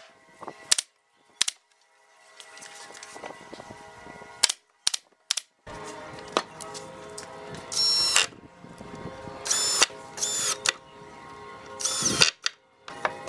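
Cordless drill working a corner of a pine box frame in four short bursts, each with a high motor whine, after a few sharp clicks and knocks.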